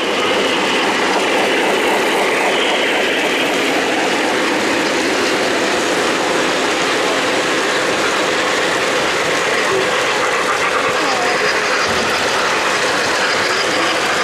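O-gauge model trains running on three-rail track close by, a steady clatter of metal wheels rolling and clicking over the rail joints.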